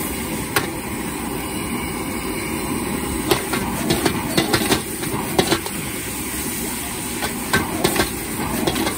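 Gas wok burner roaring steadily under a wok while a metal ladle scrapes and clanks against the pan, stir-frying rice noodles. The ladle's knocks come in quick clusters, busiest in the middle and again near the end.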